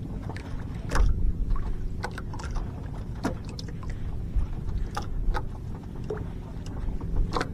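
Low steady rumble on a small fishing boat, with scattered light clicks and knocks as a sabiki line and a freshly caught fish are handled.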